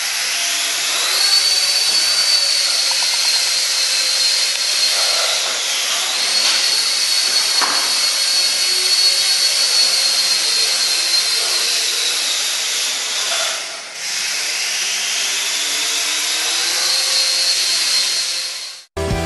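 Silverlit Sky Blade toy RC helicopter's small electric motors and rotors running, a high-pitched whine over an airy whir. It spins up about a second in, dips briefly around six seconds, winds down near fourteen seconds, then spins up again before cutting off.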